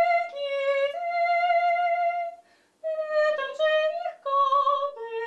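A woman singing alone without accompaniment, a slow line of long held notes that step up and down, with a short break about two and a half seconds in.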